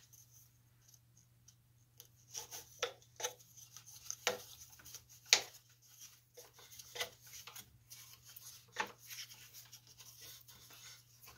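Rope rubbing and small wooden clicks and knocks as a twisted-rope clamp is wrapped around a chair frame and tightened with a wooden stick, starting about two seconds in, with one sharper click about five seconds in. A low steady hum runs underneath.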